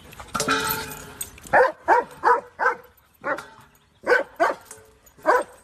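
A dog barking repeatedly: about nine short, sharp barks in quick runs, after a longer cry in the first second.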